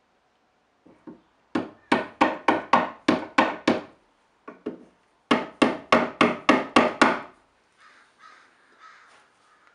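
Claw hammer tapping domed plugs into holes in a plywood shelf: a couple of light taps, then a run of about nine quick strikes, two more light taps, and a second run of about eight strikes, roughly four a second. Faint handling noise follows near the end.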